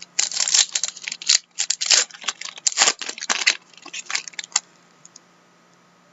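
Plastic wrapper of a pack of hockey trading cards torn open and crinkled in a quick run of crisp rustles, stopping about four and a half seconds in.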